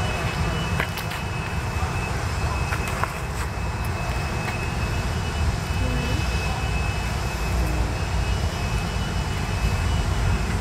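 Steady low rumble of outdoor background noise, with a few faint clicks in the first few seconds.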